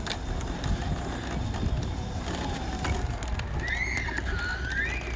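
Steady low rumble of an off-road bike being ridden slowly through deep mud, with small irregular knocks. Near the end a faint high call rises and falls.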